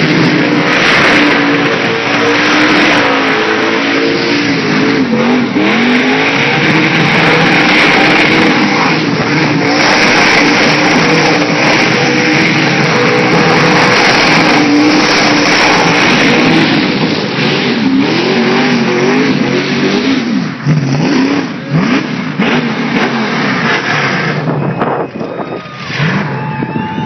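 Car engine held at high revs with its tyres spinning and screeching in a burnout. In the last third the engine revs rise and fall repeatedly and the tyre noise drops away.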